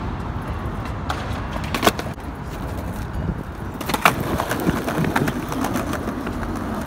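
Skateboard wheels rolling on a concrete sidewalk with a steady rumble. Sharp clacks of the board on the pavement come about two seconds in and again about four seconds in.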